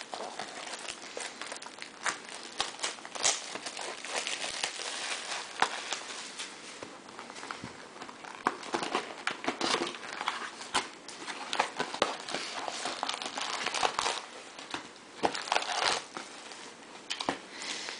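Bowman baseball card box being handled and opened, with cardboard rustling and foil-wrapped card packs crinkling as they are lifted out. Irregular crackles and sharp clicks throughout.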